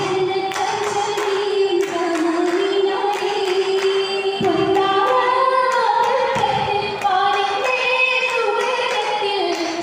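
Girls' voices singing an oppana song together as a group, a continuous melody whose pitch moves up about halfway through, with the dancers' regular hand claps marking the beat.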